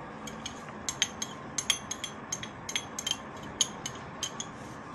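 Spoon clinking against a bowl in an irregular run of light, ringing clicks.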